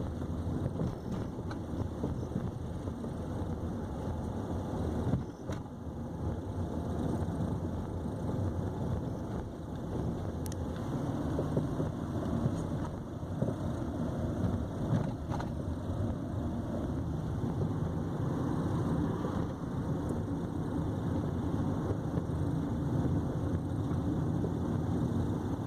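A 2015 Nissan Sentra (B17) on the move, with a steady road-and-tyre rumble broken by a few sharp knocks from the front suspension. The knocks are the metallic noise and blows in the front right suspension that the car has had since it was new.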